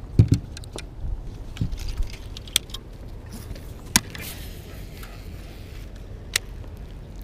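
Small clicks and rattles of fishing gear and steps on an aluminium bass-boat deck, then a cast with a baitcasting reel: a sharp click about four seconds in, a brief hiss of line paying out, and another sharp click near the end as the reel is cranked.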